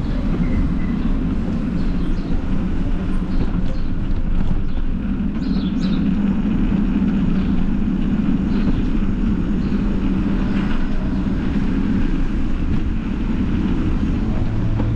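Steady low rumble of riding noise: wind buffeting the microphone and tyres rolling on the street.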